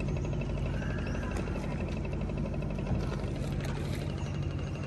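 Motor boat's engine running steadily, a low even drone.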